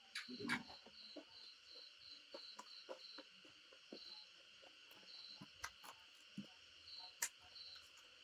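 Faint cricket chirping: short high chirps about three a second for the first three seconds, then only now and then, over a steady high insect hum. Soft clicks and smacks of someone chewing come in between.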